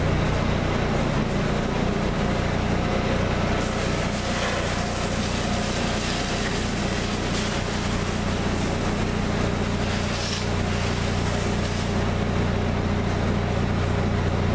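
Winery grape-crushing machinery running with a steady low hum, a hiss in the highs growing brighter about four seconds in.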